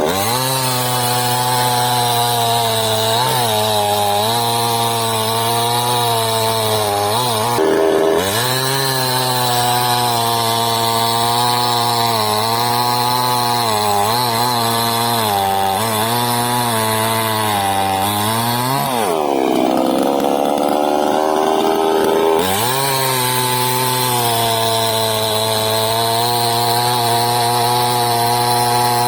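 KROFF two-stroke petrol chainsaw running under load as it cuts wood, its engine note sagging briefly again and again as the chain bites. About two-thirds of the way through the pitch drops further for a few seconds, then climbs back to a steady cutting speed.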